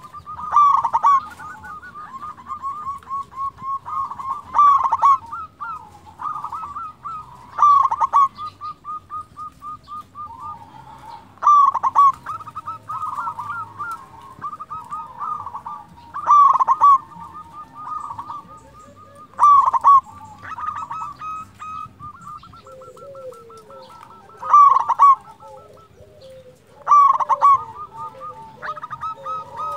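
Zebra dove (perkutut) singing its rolling coo: a loud phrase every three to four seconds, with rapid trilled notes in between. Lower-pitched cooing joins in about three quarters of the way through.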